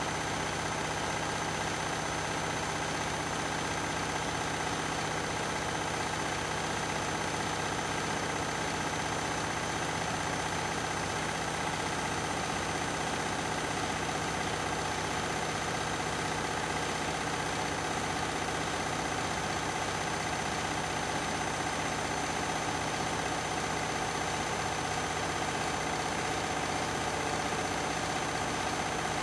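Beko and Candy washing machines running together at a steady speed, with a constant motor whine and hum and no change in pitch.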